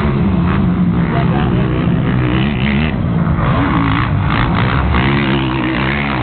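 Motocross bike engines revving, the pitch rising and falling again and again.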